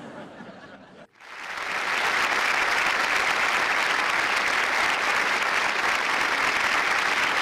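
Audience applauding: many hands clapping in a dense, steady patter that swells in about a second in and then holds.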